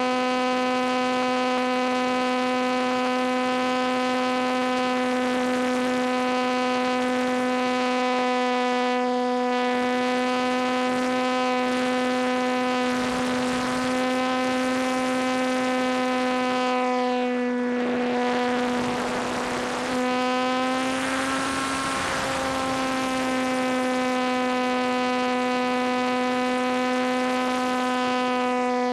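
RC T-28 model airplane's motor and propeller running at a steady high throttle, heard from a camera on board, a constant hum at one pitch. Wind rushes over the airframe in gusts about halfway through and again for a few seconds after.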